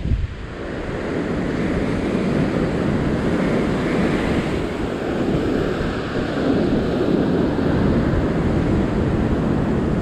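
Heavy ocean surf breaking and washing across a sandstone rock ledge: a loud, steady rush of water that swells up in the first second, with wind buffeting the microphone.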